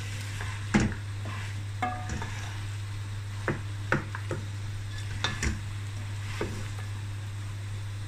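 Wooden spatula stirring okra and meat in a metal pressure-cooker pot, knocking and scraping against the pot wall about nine times, over a steady low hum.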